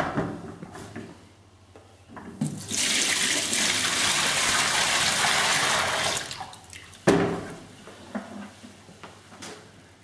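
Dirty water poured out of a Numatic George extractor's plastic tank into a stainless steel sink: a steady gush lasting about three and a half seconds, then tailing off to a trickle. A few knocks of the tank being handled come before it, and a sharp loud knock follows about seven seconds in.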